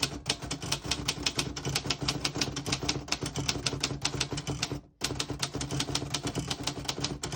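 1938 Royal O Model portable typewriter being typed on: a quick, even run of key strikes clacking against the platen, with a brief pause about five seconds in before the typing resumes.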